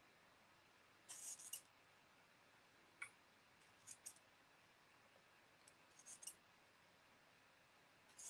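Near silence broken by a few faint, brief scratchy taps in small clusters: a paintbrush dabbing and loading paint on a foam tray palette.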